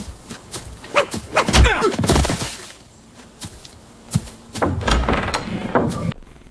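Sound-effect thuds and knocks mixed with animal cries, two busy bursts of them, cutting off near the end.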